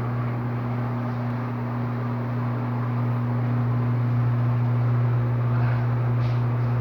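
Electrolux LTD13 13 kg washing machine spinning its drum in the second-rinse spin: a steady motor hum over a rushing noise, growing slightly louder about halfway through.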